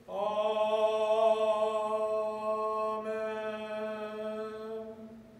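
A voice sings a closing 'Amen', the response to the prayer, held on one long steady note for about five seconds and fading out near the end.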